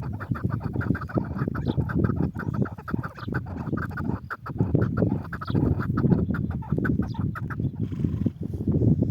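Chukar partridge (lal keklik) calling in a fast run of clucking 'chuk' notes, about eight a second, breaking off near the end. A steady low rumble runs underneath.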